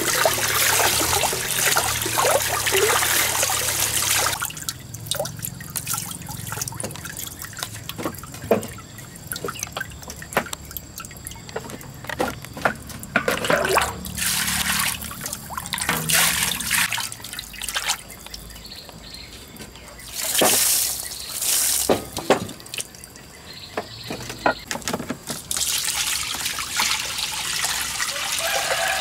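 Water trickling and pouring steadily over leafy greens in a plastic colander, then short splashes as water is scooped with a plastic dipper, and near the end water poured from the dipper into an iron wok.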